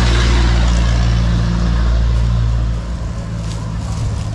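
A truck's engine running close by, a low steady drone that eases off and gets quieter about three seconds in.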